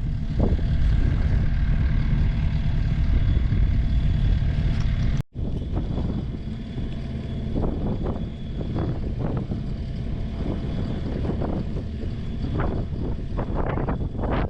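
Strong wind buffeting the microphone, a heavy low rumble. It drops out for an instant about five seconds in, then carries on with a scatter of short knocks and taps over it.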